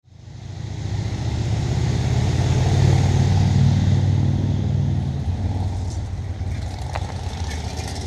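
A motor vehicle's engine rumbling, growing louder to a peak about three to four seconds in, then easing off.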